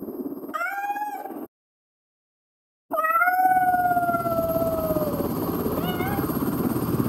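Cat meows morphed with helicopter noise through the Zynaptiq Morph 3 Pro plug-in's Sonance algorithm: pitched meow-like calls over a steady, fast-pulsing helicopter drone. A short meow about half a second in is followed by total silence for over a second, then a long meow falling in pitch starts about three seconds in, with shorter calls near the end.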